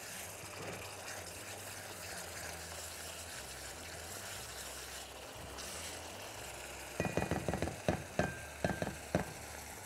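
Camel meat sizzling and bubbling in a pot as its cooking liquid boils down, stirred with a spatula. From about seven seconds in comes a quick run of knocks and scrapes of a utensil against the pan.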